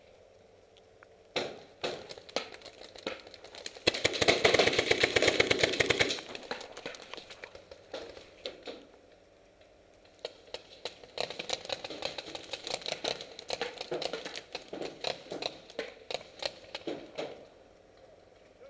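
Paintball markers firing in rapid strings of shots. The first shots come a little over a second in, a dense, loud string runs from about four to six seconds, and after scattered single shots a second long run of rapid fire goes from about eleven to seventeen seconds.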